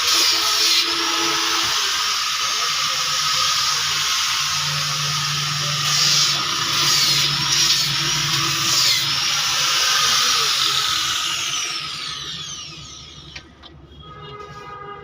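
Woodworking power tool running steadily with a loud hiss and a held whine, then spinning down about twelve seconds in, its pitch falling as it stops.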